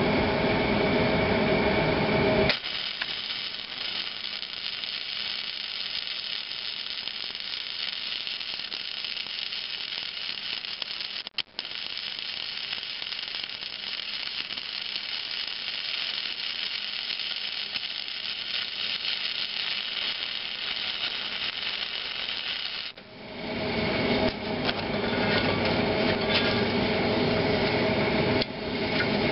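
Flux-core wire-feed welder arc crackling and hissing steadily for about twenty seconds, with a brief stop near the middle, as a puller is welded back onto a stuck flywheel gib key. Before and after the welding there is a louder steady hum, with a few sharp clicks near the end.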